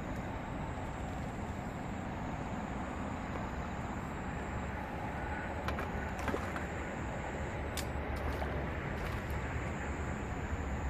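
Steady low rumble of distant traffic, with a faint high steady whine and a few faint clicks in the second half.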